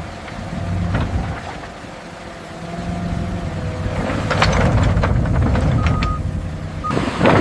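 Excavator diesel engine running under working load, rising and falling in level, with a few sharp knocks and a short beep about six seconds in.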